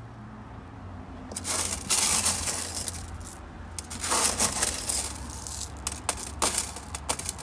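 Small pebbles clattering against one another as handfuls are scooped up by hand, in irregular bursts of clicks starting about a second and a half in.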